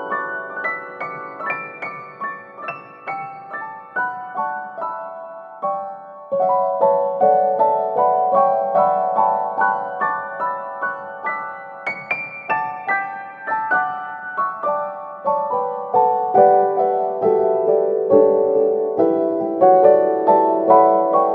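Background piano music, a gentle melody of evenly paced notes.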